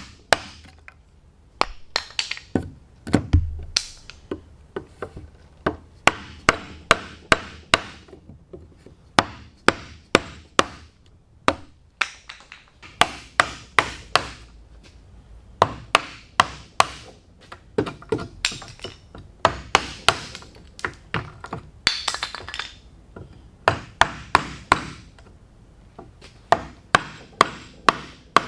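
Mallet blows on wood in hand-tool joinery: sharp knocks in runs of several strikes, about two or three a second, with short pauses between runs.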